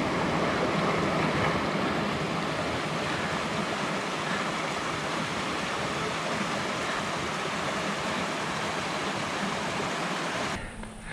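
Steady rushing water, an even hiss-like roar with no breaks. It changes to a different, choppier sound near the end.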